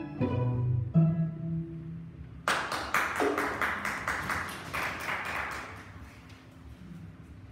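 A string quartet's closing notes end on a low held cello note. Then a small audience claps for about three seconds.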